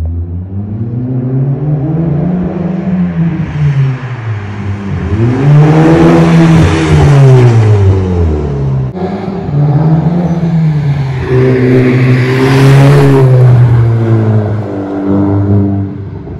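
Seat Leon 1.8 TSI 180 turbocharged four-cylinder with its rear silencer and intermediate muffler removed, accelerating past with a loud, modified exhaust. The engine note climbs and drops several times as it pulls through the gears. It is loudest in the middle and again as the car passes close.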